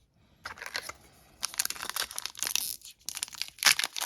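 Foil trading-card pack wrapper crinkling and tearing, a dense run of crackles that grows busier after about a second and a half, with one sharp loud crackle near the end.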